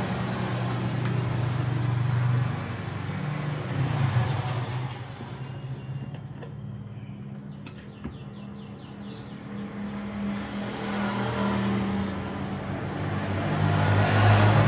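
An engine running, its low hum swelling and easing several times, loudest near the end. A few light sharp clicks come through in the quieter stretch about six to eight seconds in.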